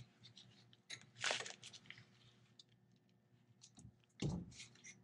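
Faint clicks of a wrench on a brake caliper's bleeder screw while bleeding the front brakes, with a short sputtering hiss about a second in as air and brake fluid are pushed out of the opened bleeder under the held pedal. A dull knock follows about four seconds in.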